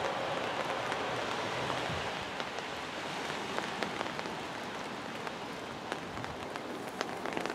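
Steady rain falling, an even hiss with many scattered sharp ticks of individual drops striking.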